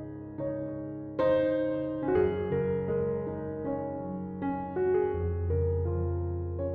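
Slow, calm piano music: notes struck about every half second to a second, each fading away, over held low bass notes.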